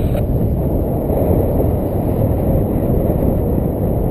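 Steady wind noise on the microphone from the airflow of a paraglider in flight: a dense, low rush with no distinct events.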